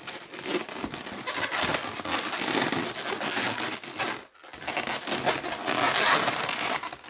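Long latex twisting balloons rubbing and crinkling against each other as hands twist and wrap them into a bear-ear twist, with a short pause about four seconds in.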